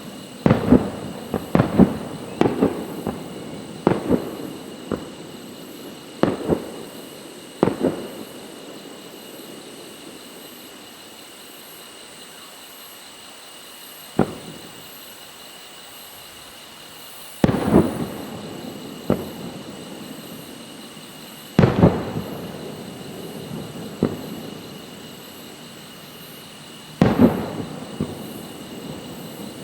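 Aerial fireworks shells bursting: a quick string of sharp bangs for the first several seconds, then a lull, then single bangs every few seconds, each with an echoing tail.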